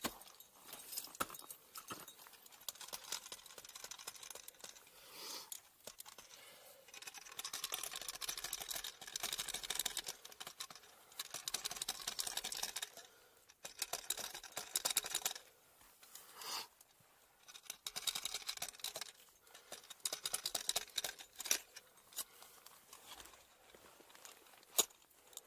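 Ice climbing gear on the ice: repeated bursts of crackling and scraping as ice tools and crampons chip at the ice, with a few sharp knocks.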